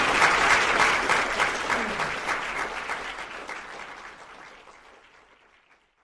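Audience applauding. The clapping fades steadily from about a second in and dies away into silence near the end.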